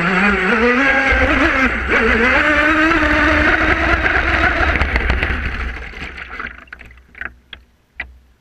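Brushless electric motor of a twin-hull RC speedboat whining, its pitch rising and falling with the throttle over a hiss of water spray. It fades away about six seconds in, followed by a few sharp clicks.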